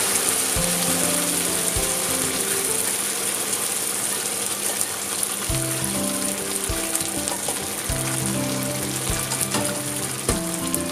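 Ankake sauce sizzling and bubbling as it is poured into a hot frying pan around pan-fried meatballs, with a few light clicks of a spatula against the pan. Soft background music plays underneath.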